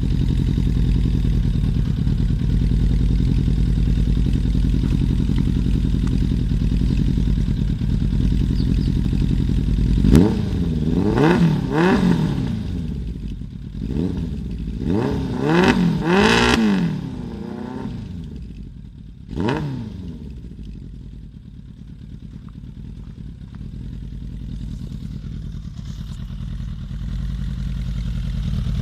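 Suzuki GSX-F motorcycle's inline-four engine running through an aftermarket stainless slip-on exhaust. It idles steadily, then is revved in short throttle blips, each rising and falling in pitch: a couple about a third of the way in, a cluster of several a little later, and one last sharp blip. It then settles back to a quieter idle.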